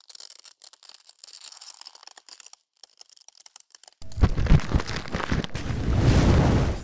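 Sound-design effects for an animated title: faint, scattered crackling at first, then about four seconds in a sudden loud crash with deep thuds, leading into a dense rumbling noise that swells and cuts off abruptly. It matches a cracking, breaking-through effect.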